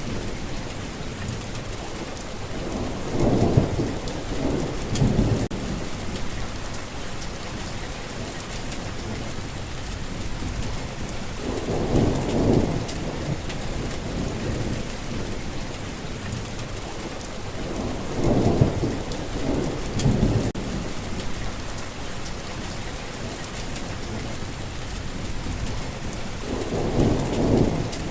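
Steady rain falling, with low rolls of thunder swelling and fading four times, about every seven to eight seconds.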